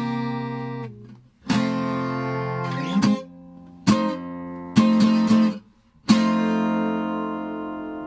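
Outro music: a handful of separately struck, guitar-like chords, each ringing and fading, with short gaps between them; the last chord, about six seconds in, rings out slowly.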